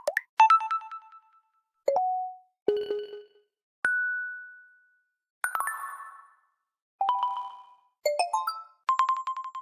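A run of short electronic phone notification chimes and dings, about nine of them one after another, each with its own pitch and timbre, ringing out and fading with brief silences between.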